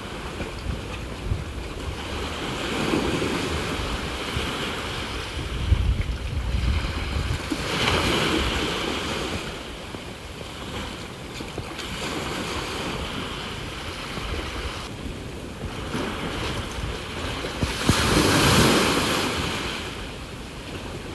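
Sea waves breaking and washing ashore, swelling about three times, with the biggest surge near the end. Wind buffets the microphone with a low rumble partway through.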